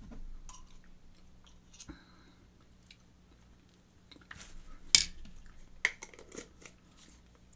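Chewing: a mouthful of sticky cookie butter spread eaten off a fork. A few sharp clicks come through, the loudest about five seconds in, as the fork and glass jar are handled and set down.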